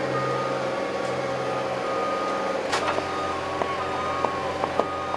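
A skid-steer loader's engine running steadily as it pulls CNG tubing through a straightener by a chain. Its low note shifts lower about two and a half seconds in. A high back-up beeping tone and a few sharp clicks are heard in the second half.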